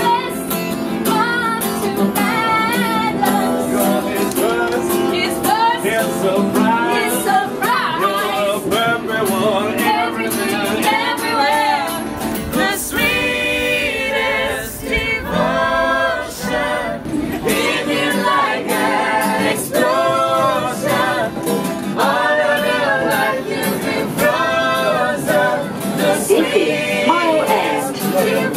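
Acoustic guitar strummed in a steady rhythm while a group of singers sing a love song together, performed live.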